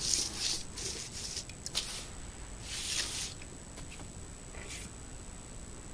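About five short rustling and rubbing noises spread over the first five seconds, then quieter.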